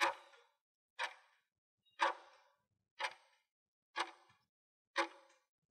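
Quiz countdown timer sound effect ticking like a clock: six short, sharp ticks, one a second, counting down the time left to answer.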